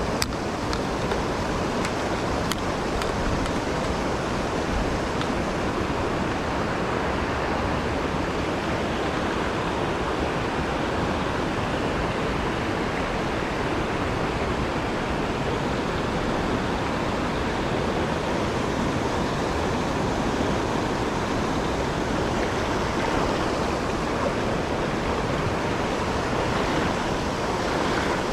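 Mountain stream's flowing water, a steady rush with no letup.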